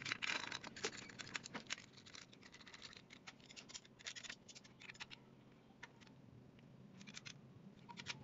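Faint, scattered metallic clicks and scrapes of a timing-chain tensioner being set in place and a socket on an extension turning its bolt into the engine block, coming in small clusters.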